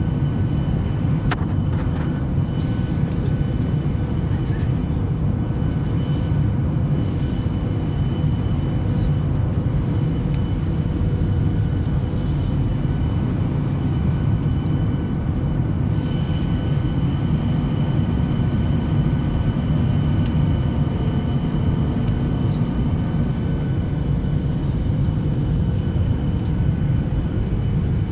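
Steady low roar of an airliner cabin in flight, heard from a window seat: jet engine and airflow noise, with a few steady whining tones riding over it and a few faint clicks.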